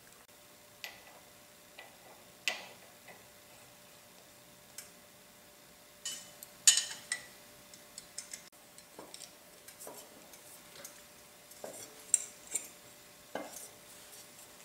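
Scattered metallic clinks and taps as the motor's rotor is worked onto the spindle and a spanner wrench is fitted over its retaining nut. The loudest cluster of clinks comes about six to seven seconds in.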